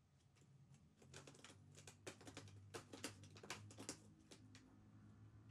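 Faint, quick, irregular light clicks and taps, about two dozen over some three and a half seconds, as a cat's paws and claws step over a cluttered desk and the objects on it. A faint low hum grows near the end.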